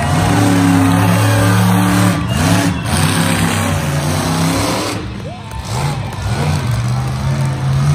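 Monster truck engine revving hard, its pitch climbing and falling several times. It eases off briefly about five seconds in, then comes back on the throttle.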